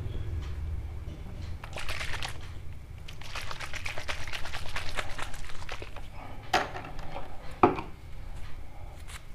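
Fingers rubbing and tousling the hair of a freshly attached men's toupee, a dry crackly rustle of hair, with two sharp clicks near the end about a second apart.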